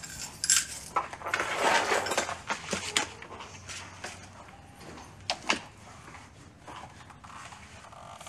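Fabric rustling and handling noise as clothes are folded and packed into an open suitcase, with a few sharp clicks and knocks, the loudest a pair about halfway through.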